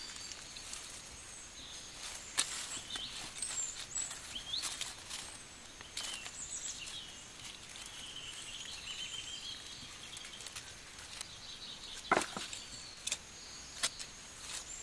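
Birds chirping and whistling in short gliding phrases over rural outdoor ambience, with a thin steady high tone. A few sharp knocks and rustles come through, the loudest about twelve seconds in.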